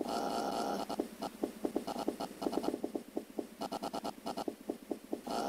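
Small screwdriver working screws out of a plastic toy laptop's circuit board: a run of sharp clicks, some in quick groups, with short squeaky scrapes of the blade in the screw heads.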